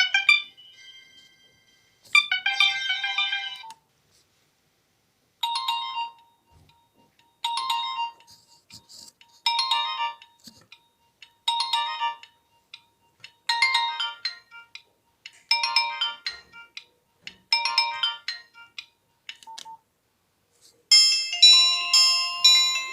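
Nokia 1616 mobile phone playing its built-in ringtones one after another. A short phrase sounds about two seconds in, then a short ringing phrase repeats about every two seconds, and a new, busier melody starts near the end.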